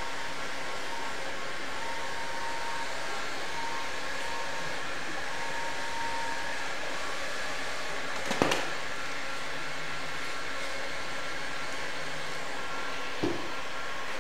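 Steady hiss of a small electric blower running without a break, with a faint intermittent high hum, and two short knocks, one about eight seconds in and a lighter one near the end.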